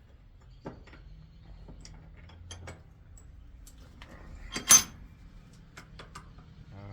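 Metal hand tools working a stuck brass plumbing fitting: scattered light metal clicks and handling, and one sharp metallic clank about two thirds in that rings briefly.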